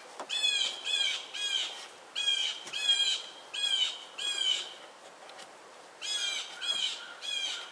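A bird calling: a series of short, downward-sliding chirps in three groups of three or four, with pauses between the groups.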